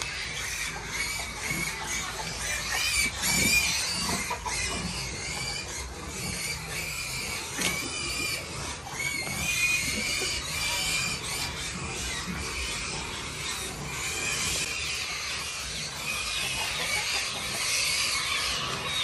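Pigs squealing over and over, high-pitched wavering squeals, loudest about 3 and 10 seconds in.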